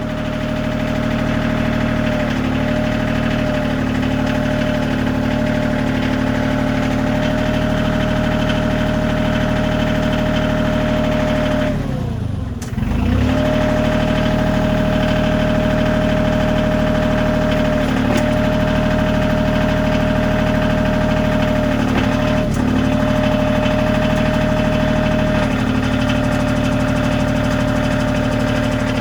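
Bobcat CT2025 compact tractor's diesel engine running steadily at raised revs while the BH76 backhoe's hydraulics are worked. About twelve seconds in, the engine pitch sags and then climbs back, and there are a few brief smaller dips later as the hydraulics load the engine.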